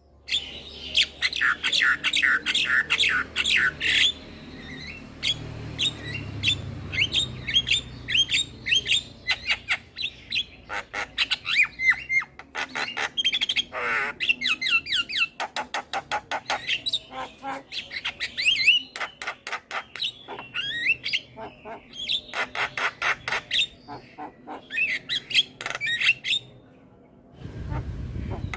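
Javan myna (jalak kebo) singing: fast runs of sharp, quickly repeated chirps mixed with squawky whistled notes, broken by a short pause near the end.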